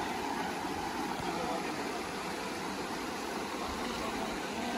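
Steady rushing hiss of floodwater pouring across a paved highway.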